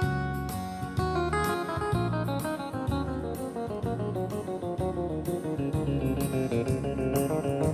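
Background music led by plucked guitar over a steady bass line.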